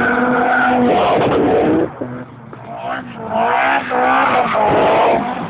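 Several track cars passing in turn at high revs, their engine notes rising in pitch and dropping again several times as the drivers work the throttle, with tyre noise from a car sliding sideways through the bend.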